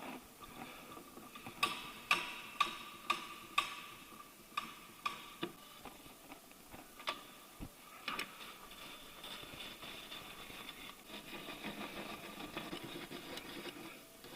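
Sharp metallic clicks and knocks of hand tools and fasteners as a car's engine undershield is refitted: a quick run of evenly spaced clicks, about two a second, a couple of seconds in, then scattered single clicks.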